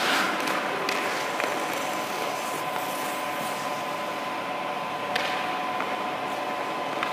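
A steady background hum with a faint high tone, and a few short scrapes of a hockey goalie's skates on the ice.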